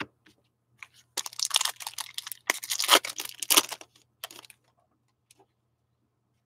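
Foil trading-card pack wrapper being torn open and crinkled by hand: a dense run of sharp crackles lasting about three seconds, with a few more shortly after.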